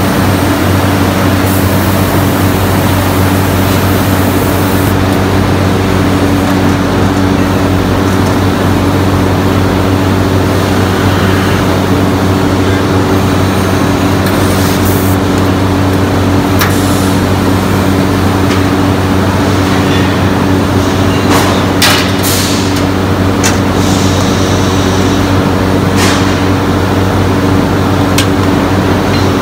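Brass foundry casting machinery and furnace running: a loud continuous drone with a steady low hum. Now and then there are short hisses and clanks from the gravity casting machine, whose hot die is steaming.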